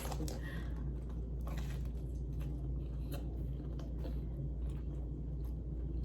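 A person chewing a mouthful of pizza close to the microphone, with scattered soft mouth clicks and smacks over a steady low hum.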